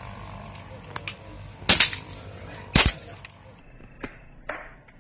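Air rifles firing at a shooting range: two loud, sharp shots about a second apart near the middle, with several fainter shots around them.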